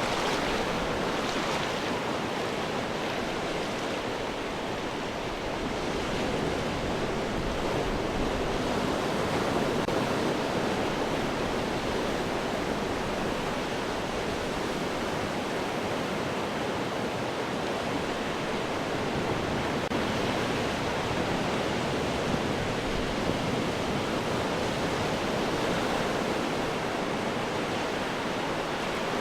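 Ocean surf washing continuously against rocks: a steady roar of breaking water with gentle swells as waves come in, and no single sharp crash standing out.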